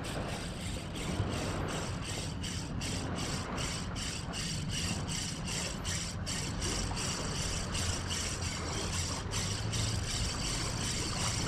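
Ryobi Ultrapower 1000 spinning reel being cranked on a retrieve, ticking evenly at about four clicks a second, over a low rumble.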